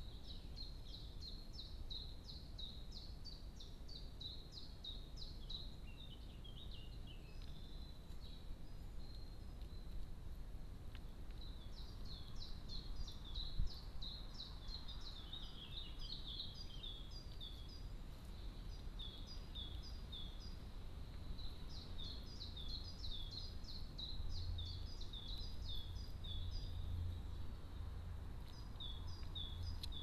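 A small songbird singing: phrases of quick, high chirping notes a few seconds long, repeated with short pauses, over a steady low rumble. A single sharp click about halfway through.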